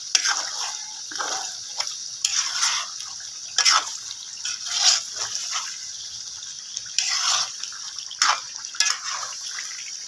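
Steel spatula stirring and turning chicken through bubbling, oily cream gravy in a karahi: irregular wet squelching strokes about once a second over a steady sizzle. The gravy has started to catch on the bottom of the pan.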